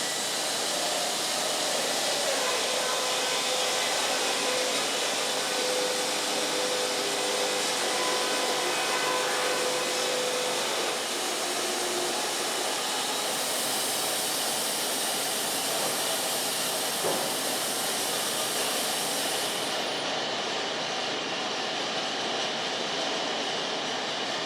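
Wood-Mizer LT50 band sawmill running with a steady, even mechanical noise; a faint whine fades out about halfway through.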